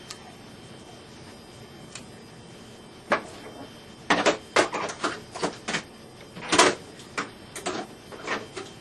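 Small clippers working on parts inside an opened desktop computer case: quiet at first, then about three seconds in a run of a dozen or so short, irregular clicks and snaps of metal and plastic.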